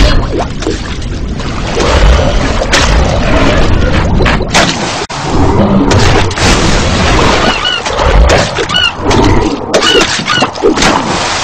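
Loud rumbling and crashing effects with deep booms, and several short high chirps in the second half.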